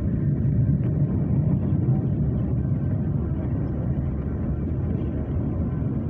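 New York City subway B train running along the track, heard from inside the car as a steady low rumble of wheels on rails.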